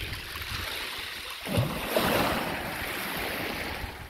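Small waves washing in over a shingle beach at the water's edge, a rushing hiss that surges about one and a half seconds in.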